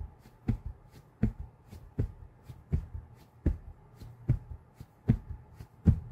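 A steady beat of soft thumps, a strong one about every three-quarters of a second with lighter ones between, over a low steady hum.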